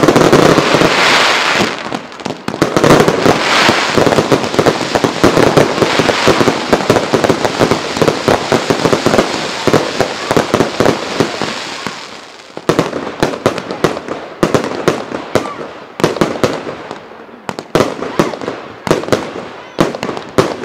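Fireworks barrage: many aerial shells bursting at once in a dense, continuous crackling and banging. After about twelve seconds it thins to separate bursts of rapid cracks and bangs.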